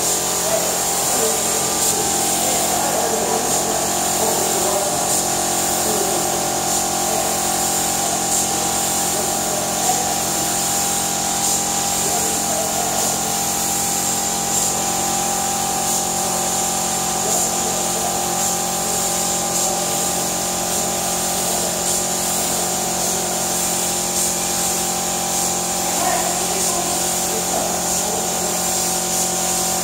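Compressed-air gravity-feed paint spray gun hissing steadily as it sprays paint, over a steady machine hum.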